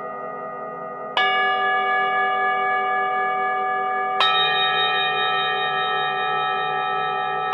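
Singing bowls struck twice, about a second in and about four seconds in, each strike adding a new ringing tone over the still-sounding earlier ones, with a slow wavering in the low tone.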